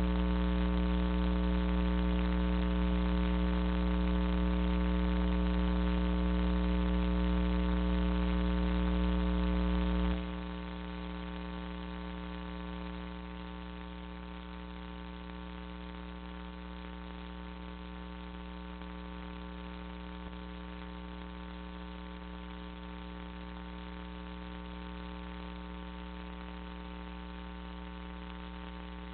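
Steady electrical mains hum with many higher overtones, picked up by an IP security camera's audio. It drops noticeably in level about ten seconds in and carries on quieter.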